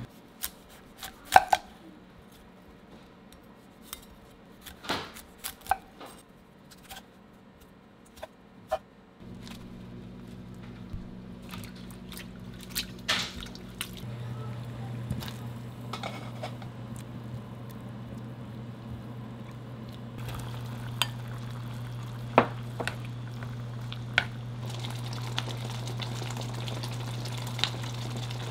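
Dishes and utensils clinking and knocking now and then during cooking, with a steady low hum that starts about nine seconds in and grows louder in two steps.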